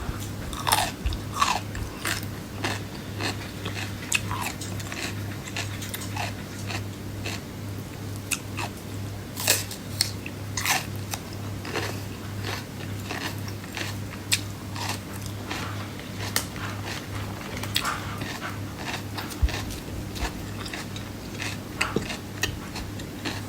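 Close-up eating sounds: a person biting and chewing food, with irregular crisp crunches like raw vegetables being bitten, over a steady low hum.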